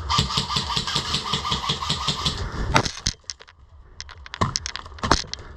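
Airsoft M4 electric rifle firing a full-auto burst, a rapid even rattle lasting about two and a half seconds. A string of separate sharp cracks and clicks follows, the loudest near the end.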